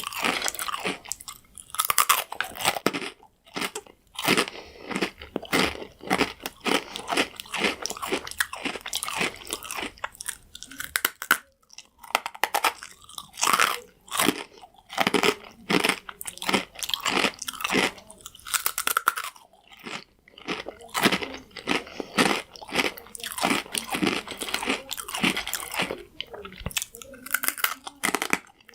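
Croutons being bitten and chewed close to the microphone: loud, dense crunching in irregular bursts with brief pauses between mouthfuls.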